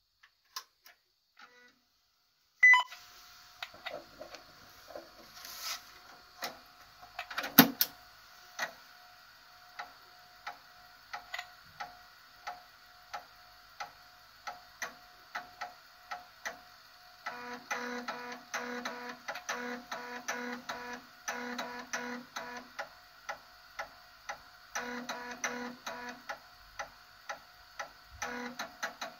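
NEC PC-9801FX's 5.25-inch floppy drive booting MS-DOS from disk. A loud click comes about two and a half seconds in as the machine powers on, then the drive runs with sharp ticks about once a second and a clatter near eight seconds. From about seventeen seconds there is a rhythmic run of short buzzing bursts as the disk is read.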